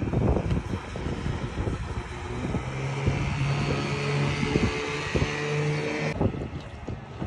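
Motorboat engine running at a steady hum, with wind buffeting the microphone and scattered knocks. The sound changes abruptly about six seconds in.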